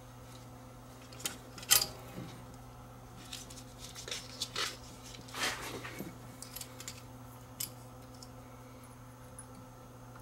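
Small electronic parts and tools handled on a workbench: scattered sharp clicks and taps, the loudest early on, a brief scrape about halfway, over a steady low hum.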